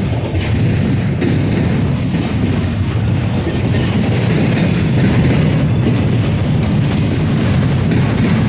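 Freight cars of a very slow train rolling past, a steady rumble of wheels on rail with occasional clicks as the wheels cross rail joints.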